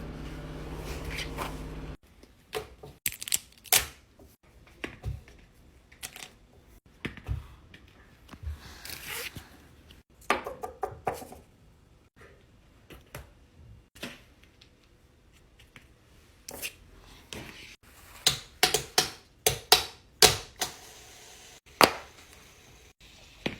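Hands handling craft materials: scattered sharp clicks, taps and short rustles and tears, coming thick and fast for a few seconds near the end. A low steady hum sits under the first two seconds.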